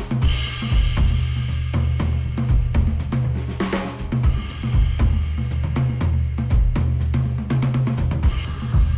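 Music with a full drum kit, with kick, snare, hi-hat and cymbal crashes, over a heavy bass line, played back through headphones and picked up by microphones at the earcups. Cymbal crashes come in at the start and again about four seconds in.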